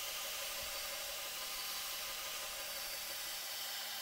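Steady hiss of a belt grinder grinding the bevels of a damascus steel blade.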